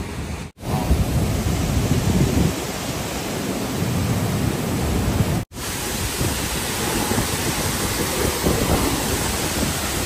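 Steady roar of a monsoon-swollen waterfall in full flow, a dense rushing noise with a heavy low rumble. It drops out for an instant twice, about half a second in and again about five and a half seconds in.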